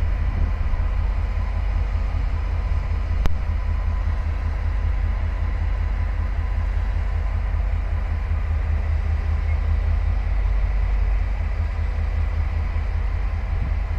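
Diesel train engine running steadily at idle, a low rumble with a faint steady whine over it; a single sharp click about three seconds in.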